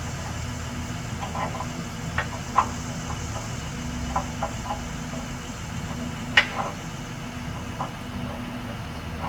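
An engine idling steadily, with scattered sharp knocks and clacks over it, the loudest about two-thirds of the way through.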